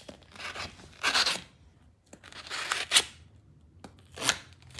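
A small switchblade knife cutting through material in about four separate strokes, the second and third the loudest.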